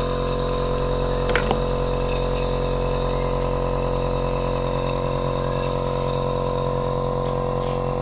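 Dr Trust compressor nebulizer running with a steady mechanical hum, with a short knock about one and a half seconds in.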